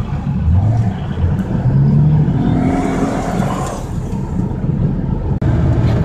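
Pickup truck's engine and road noise heard from inside the cab as the truck pulls away, the engine note rising as it picks up speed over the first couple of seconds.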